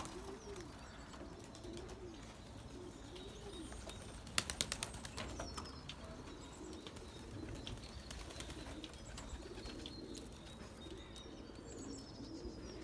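Racing pigeons cooing in repeated low, rising-and-falling coos, with a quick run of sharp clicks about four and a half seconds in and faint high chirping from small birds.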